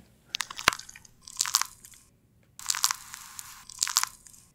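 A healthy human knee bending, recorded with a microphone sensor placed on the knee: four bursts of crunchy crackling and sharp clicks, about one a second.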